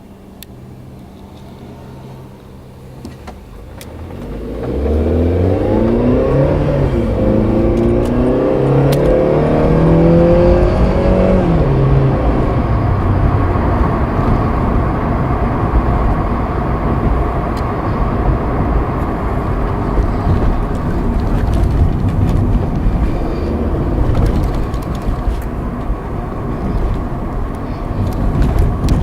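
VW Polo Sedan pulling away and accelerating, the engine note climbing and dropping back several times as the automatic gearbox shifts up, then steady tyre and road noise at cruising speed.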